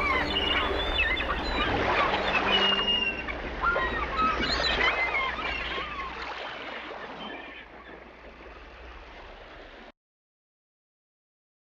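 Birds calling in short chirps and cries over a steady wash of water-like noise. The sound fades out gradually over several seconds and stops about ten seconds in.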